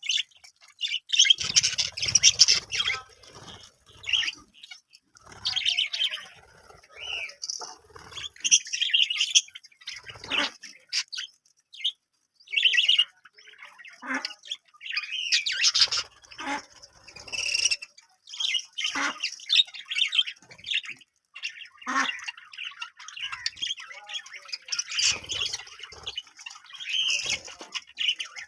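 Several budgerigars chirping and chattering in quick, irregular bursts, with occasional squawks.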